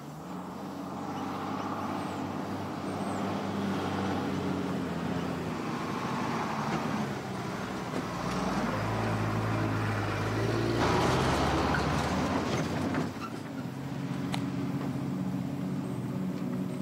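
Cab-over flatbed truck's engine running as the truck drives in and pulls up, with a louder hissing, noisy burst about eleven seconds in that lasts about two seconds.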